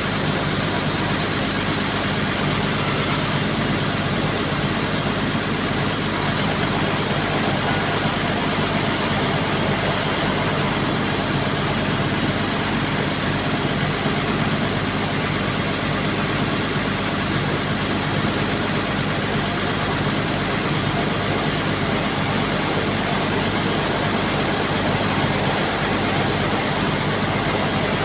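Heavy diesel engine of a bulldozer running steadily at an even speed, with no revving or change in pitch.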